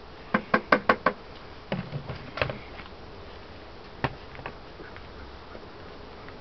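Wooden beehive parts knocking together as the hive is closed up: a quick run of about five sharp knocks, a few more a second later, then one single knock.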